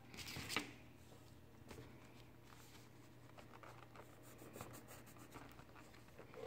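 Faint scratching and rubbing on paper from hand drawing. A louder rub comes in the first second, then light scattered strokes.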